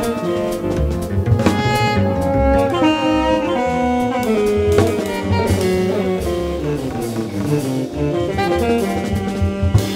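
Small jazz band playing: alto saxophone over a drum kit with cymbals, with guitar in the mix.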